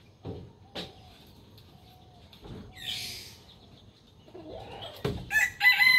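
Scattered soft knocks and faint bird calls with a brief hiss about three seconds in, then a rooster starts a loud crow near the end.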